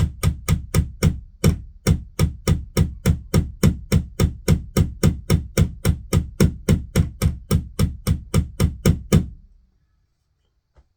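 Hammer blows driving a nail into the wall, a steady run of about three to four strikes a second that stops about nine seconds in.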